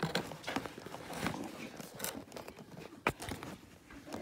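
Cardboard dinosaur-toy box being handled: irregular knocks, taps and crackling, with a few sharper knocks about a second in, at two seconds and at three seconds.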